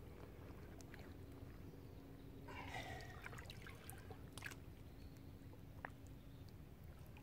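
Faint sloshing and trickling of shallow water as a carp is lowered into it by hand and held to be released, with scattered small splashes and a short louder burst about three seconds in.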